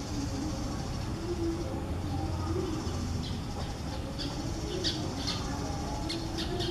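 Steady outdoor background rumble with a slowly wavering low drone, and a handful of short, high, bird-like chirps in the second half.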